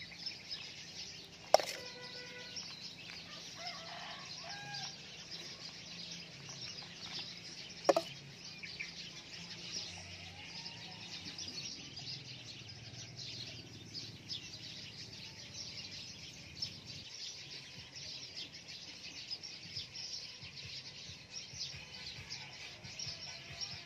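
Chickens clucking amid steady high-pitched chirping, with two sharp clicks, the loudest sounds, about a second and a half in and again about eight seconds in.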